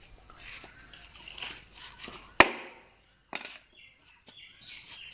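A sharp knock on wood about two and a half seconds in, then a fainter knock about a second later, over a steady high chorus of crickets.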